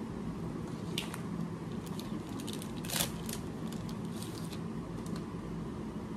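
Small clicks and light rustles of handling over a steady low room hum, the sharpest click about three seconds in.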